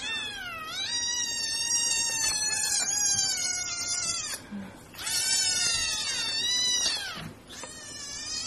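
Cat yowling in long, drawn-out calls: one of about four seconds, a second that rises and falls, then a fainter, shorter call near the end.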